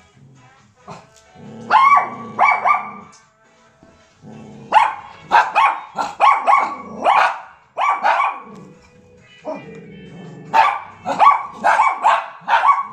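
A puppy barking in runs of short, high, sharp barks: a few about two seconds in, a longer run from about five to eight seconds, and another starting about ten and a half seconds in.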